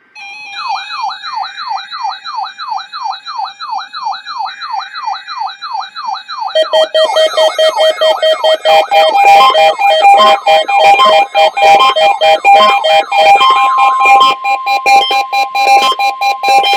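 Weather radio alert alarms set off by the NOAA Weather Radio weekly test: an electronic siren rising in pitch over and over, about twice a second, joined about six seconds in by a second alarm of beeping tones, and in the last few seconds by a steady warning-alarm tone.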